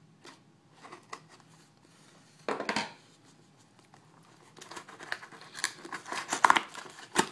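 Hands prying open a cardboard shipping box: scattered scrapes, a short loud tear of cardboard about two and a half seconds in, then a couple of seconds of dense rustling and crinkling of cardboard and packing, ending in a sharp snap.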